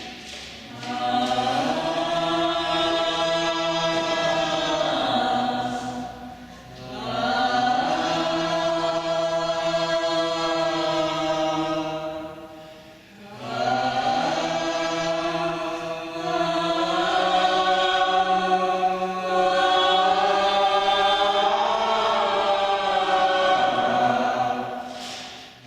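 A group of women's voices chanting long, held tones together, in three long phrases with a short break about six seconds in and another about thirteen seconds in. These are the performers' own guttural vocals in the dance's soundtrack.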